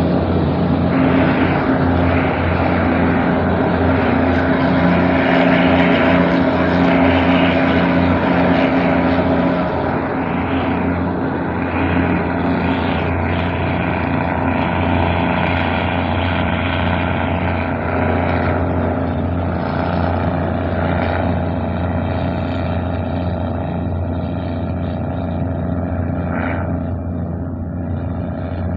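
Diesel passenger train heard from inside a carriage as it pulls away from a station: a steady engine hum under the running noise of the wheels on the rails, a little quieter from about ten seconds in.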